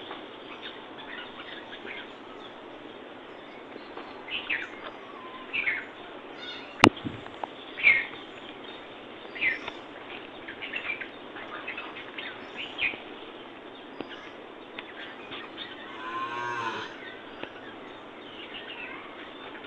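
Small birds chirping in short scattered calls over a steady outdoor background hiss. There is a single sharp click about seven seconds in, and a brief pitched animal call lasting about a second near the end.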